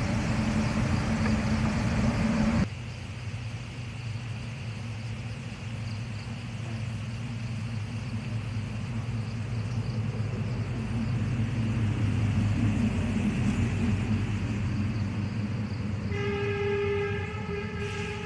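Strong wind buffeting the microphone, which cuts off abruptly after about three seconds; then a steady low rumble, and near the end a horn sounds one steady note for about two seconds.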